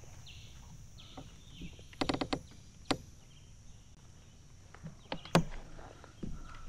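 Light clicks and knocks of fishing gear being handled in a kayak: a quick run of clicks about two seconds in and a sharper knock about five and a half seconds in, over a steady high-pitched hiss.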